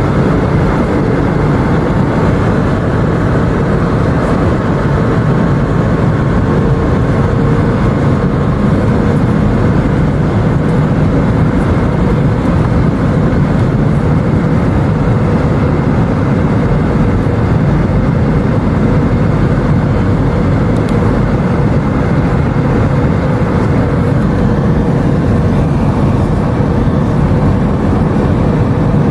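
Airbus A319 jet engines and airflow heard inside the passenger cabin: a loud, steady rush, heaviest in the low end, with a faint steady whine under it.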